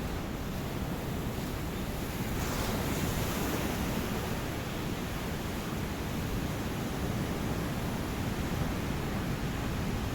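Ocean surf: a steady rush of breaking waves, swelling slightly louder about two and a half seconds in.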